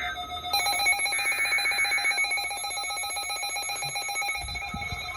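Several NOAA weather alert radios, a Midland WR400 among them, sounding their rapid pulsing alarm beeps at once in overlapping high tones, starting about half a second in. The alarms signal that the radios have received a severe thunderstorm warning.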